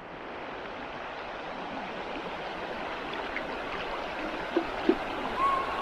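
Steady rush of flowing water, fading in at the start, with two short light knocks near the end.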